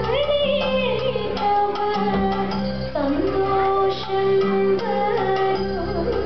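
Thiruvathirakali dance song: a woman's voice singing a melody that holds notes and steps between them, over a steady instrumental accompaniment.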